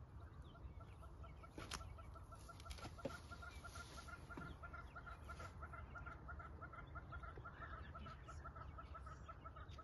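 An animal's rapid, even series of short clucking calls, about four or five a second, over a low steady rumble, with two sharp knocks early in the series.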